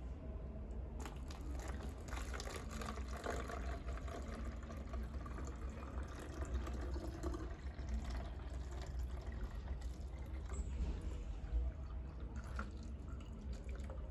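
Water trickling and splashing from a homemade plastic-bottle fountain driven by air pressure and gravity. It starts about a second in, over a low steady hum.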